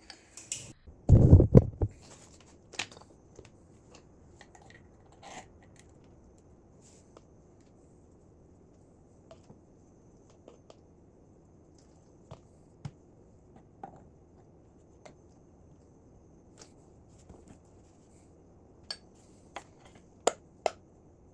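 Scattered light clicks and taps of metal outboard gearcase parts handled on a workbench as the reverse gear is fitted to the bearing carrier housing, with one heavy low thump about a second in.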